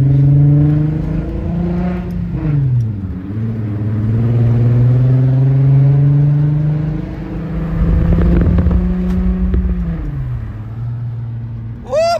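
Straight-piped Volkswagen VR6 engine in a Jetta under way, its revs rising and falling. The pitch drops sharply and climbs again about two to three seconds in, holds steady, then falls off near the end. A different steady high tone cuts in at the very end.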